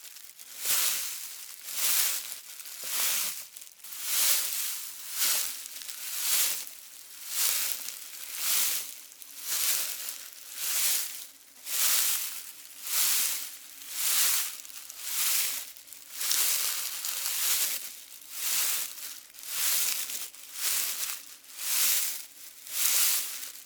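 Footsteps crunching through dry leaves at a steady walking pace, about one step a second.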